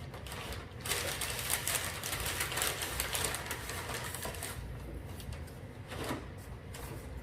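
Cardboard boxes and packaging being handled: rapid rustling and clicking, busiest from about a second in until past the middle.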